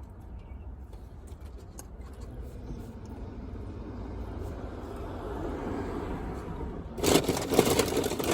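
A car passing by outside, its noise swelling over a few seconds, then a loud crackling rustle close to the microphone for the last second or so.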